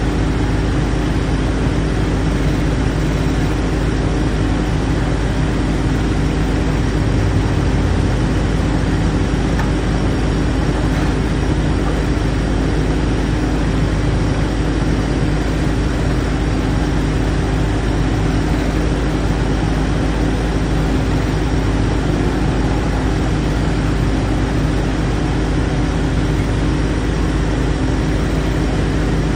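Agrotk mini excavator's engine running at a steady speed while the boom and bucket are worked, its pitch and level holding even throughout.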